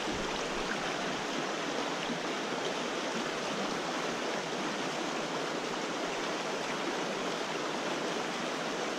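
Rocky mountain creek running over boulders and riffles: a steady, even rush of water that does not change.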